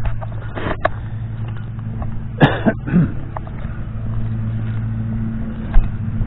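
Steady low hum of a running vehicle engine, with two short cough-like bursts about two and a half and three seconds in.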